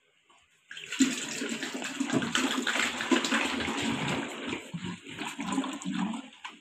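Water rushing and glugging out of a large upturned plastic water jar into a plastic dispenser container below, starting about a second in, with air bubbling up into the jar. Near the end the flow breaks into uneven gulps.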